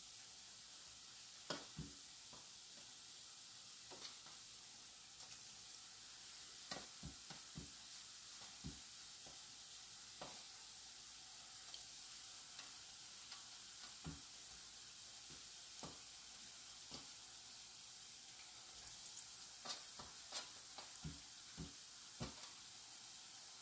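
Flour dumplings deep-frying in hot oil in a saucepan: a steady high sizzle with scattered pops and crackles, which come thicker near the end.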